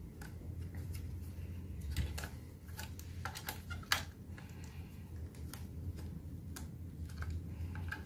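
Scattered light plastic clicks and taps, the sharpest about four seconds in, as a SATA hard drive is handled and fitted into its blue plastic drive caddy. A faint low hum runs underneath.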